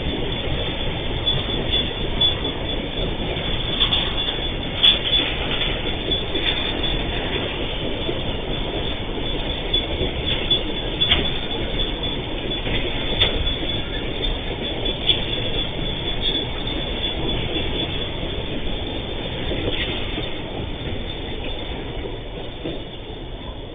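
Freight train of boxcars rolling past on the track, with a steady rumble and rattle of wagons and wheels and brief high squeals from the wheels now and then. The noise fades near the end as the last wagon goes by.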